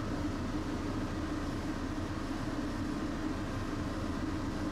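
Tosaden streetcar heard from inside an older car: a steady rumble with a constant hum.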